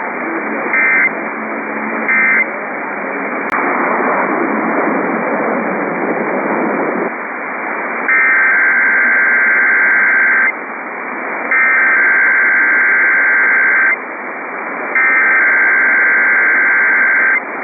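Emergency Alert System data bursts received over radio, through static: two short end-of-message bursts near the start, a click, a few seconds of hiss, then three long SAME header bursts about a second apart, announcing the next EAS test.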